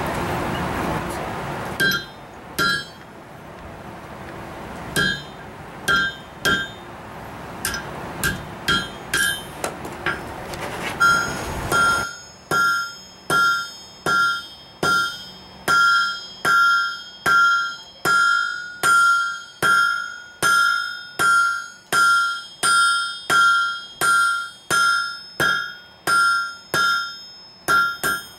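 Hand hammer striking a red-hot iron bar on an anvil, each blow ringing with a clear metallic tone, as the end of the rose stem is flattened. Scattered blows at first over a steady rushing noise, which stops about twelve seconds in; from then on the blows come in a regular rhythm of roughly one and a half a second.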